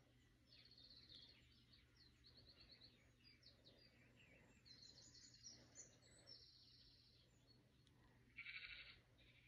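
Faint bird song: rapid, high trills and chirps repeating again and again. A louder buzzing rattle comes for about half a second near the end.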